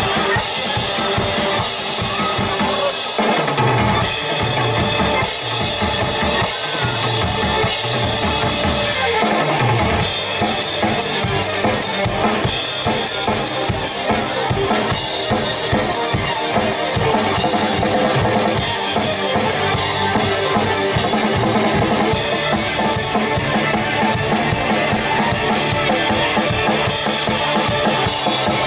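Acoustic drum kit played live at a fast tempo: dense kick, snare and tom hits under a steady wash of struck cymbals.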